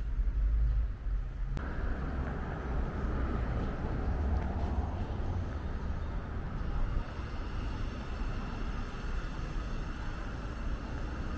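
Outdoor street ambience: a steady rumble like distant traffic, with low wind buffeting on the microphone. A wider hiss comes in suddenly about a second and a half in.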